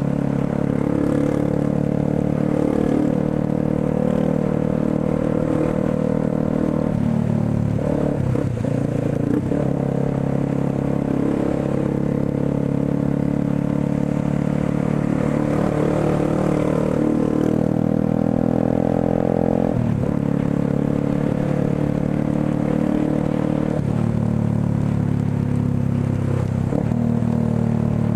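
Motorcycle engine running under way, heard from the rider's seat, its pitch shifting with throttle and gear changes; about two-thirds of the way through it climbs steadily and then drops sharply at a gear change.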